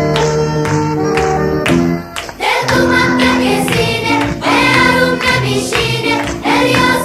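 Background music: an instrumental passage that drops out briefly about two seconds in, then comes back with singing.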